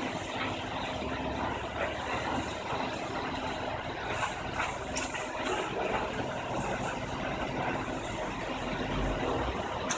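A truck's engine running steadily beside the bins, with a few short high hisses about halfway through.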